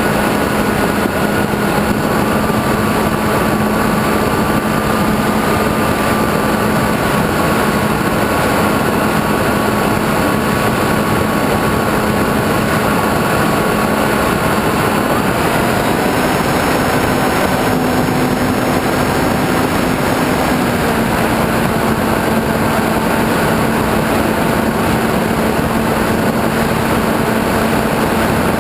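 RC plane's motor and propeller running steadily in flight, with a dense rushing noise over it. The motor's pitch steps up about halfway through and settles a little lower a few seconds later.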